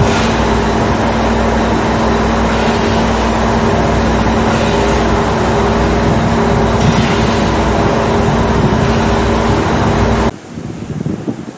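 Diesel railcar engine running with a loud, steady drone and low rumble. It cuts off suddenly near the end, leaving much quieter background noise.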